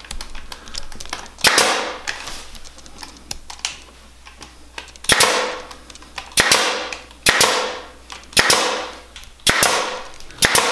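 Pneumatic brad nailer firing nails into willow sticks, about seven sharp shots. Each shot is followed by a short fading hiss. There is one shot early, a pause of several seconds, then a run of shots about a second apart from the middle on.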